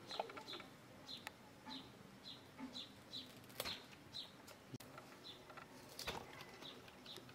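A small bird chirping over and over, about twice a second, with a few sharp cutting clicks as bottle gourd skin is sliced off against an upright boti blade, the loudest about six seconds in.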